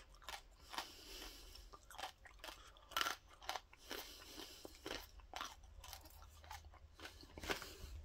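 A person chewing a mouthful of Corn Nuts, crunchy toasted corn kernels, with irregular crunches. The loudest crunch comes about three seconds in.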